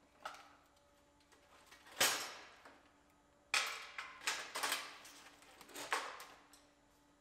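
Plastic push clips being pried out of a pickup's front bumper filler panel: a sharp pop about two seconds in, then a few seconds of clicking and clattering.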